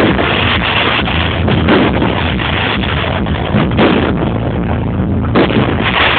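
Fireworks going off in quick, irregular succession, loud overlapping bangs and crackle, with music playing underneath.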